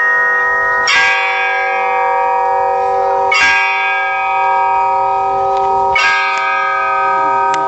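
Bells struck three times, about every two and a half seconds, each strike ringing on in many steady tones that overlap the next.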